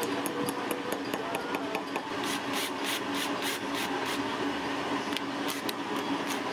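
Power driver running, driving a screw through a steel angle bracket into a plastic wall plug set in a hole drilled in granite. Its motor hums steadily, with a run of rapid clicks, about five a second, from about two seconds in.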